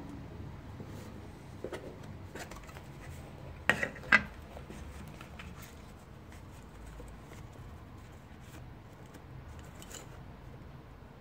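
A round watch box and its packing inserts being handled and taken apart, with light rustling and small clicks. Two sharper knocks about four seconds in are the loudest sounds.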